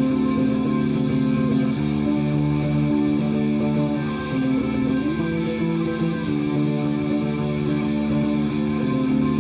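Punk rock song with electric guitar, and a four-string electric bass in standard tuning played along with it.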